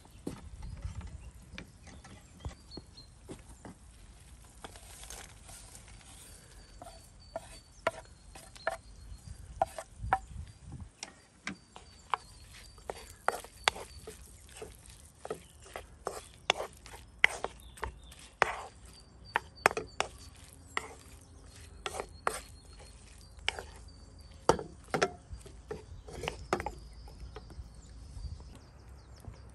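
Knife cutting on a wooden cutting board: irregular sharp knocks and clicks, one or two a second, sometimes in quick clusters.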